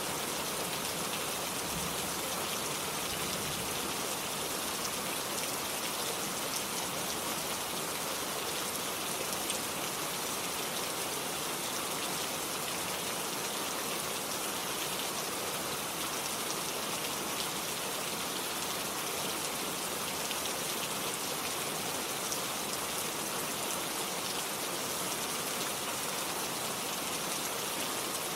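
Steady rain falling on a hard surface, a dense even patter of drops without let-up.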